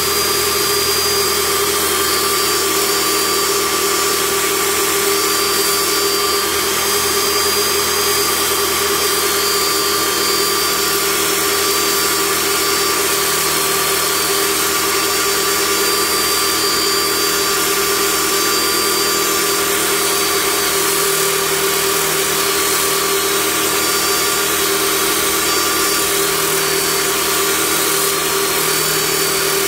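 Vevor 14-inch electric cut-off saw running under load, its blade grinding steadily down through a steel bolt: a steady whine over a grinding hiss.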